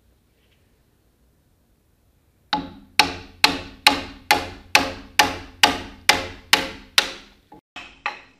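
Mallet blows on a long iron chisel cutting into an oak trunk. About a dozen sharp, ringing strikes come at roughly two a second, starting a couple of seconds in, with a few lighter taps near the end.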